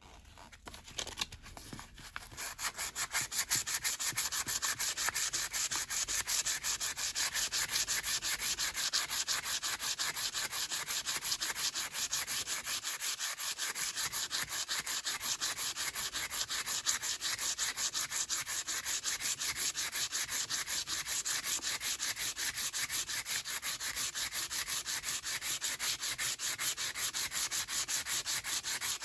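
Rapid, even back-and-forth abrasive rubbing on the metal of a rusty vintage Snap-on T-handle as the rust is worked off. The strokes build up over the first two seconds, then keep a steady rhythm.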